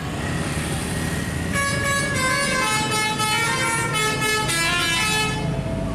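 Bus telolet horn, a multi-tone air horn, playing a quick melody of stepped notes from about a second and a half in until near the end, over the bus's engine and road noise.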